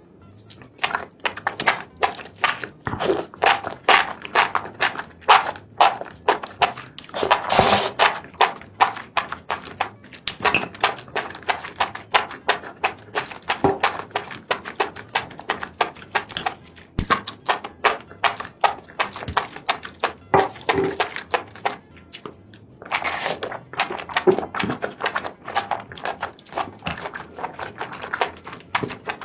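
Close-miked mukbang eating sounds: chewing and mouth noises over a mouthful of spicy seafood and enoki mushrooms, a dense, uneven run of wet clicks and smacks. It grows louder and busier about eight seconds in, and again from about twenty-three seconds.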